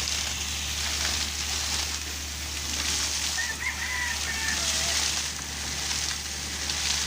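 Water and compressed air gushing and spraying out of a deep well as an air compressor blows it out: a steady hiss that swells and eases, over the compressor's steady low hum. A rooster crows faintly about midway.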